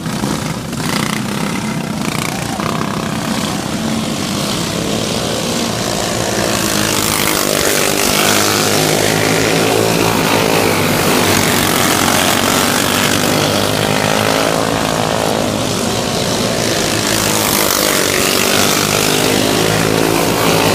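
Briggs & Stratton Animal four-stroke kart engine running hard on track, its pitch repeatedly rising and falling as the kart accelerates out of corners and slows into them, with a steady rush of wind noise over it.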